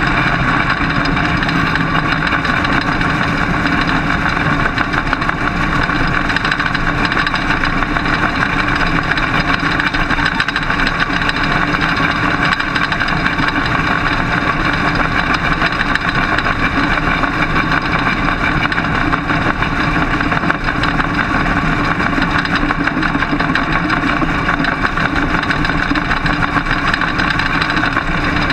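Britt-chassis dirt-track modified race car's engine running hard at racing speed, heard from inside the cockpit: a loud, steady engine noise.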